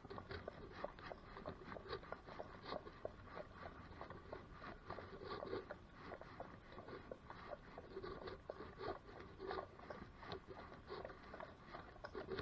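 Shod hooves of horses walking on a wet tarmac lane: a run of uneven clicking hoof strikes, several a second.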